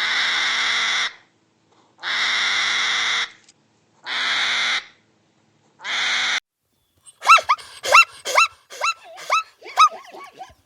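Bird calls: four long, harsh calls about a second apart, then a quick run of short pitched calls, about three a second, for roughly three seconds near the end.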